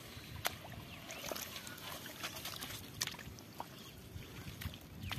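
Faint sloshing of shallow water and mud, with a few scattered sharp ticks, as hands and bare feet work through a flooded rice field.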